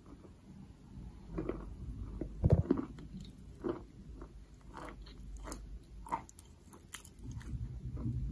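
Chalk being chewed with the mouth closed: a string of irregular soft crunches and clicks, the loudest about two and a half seconds in.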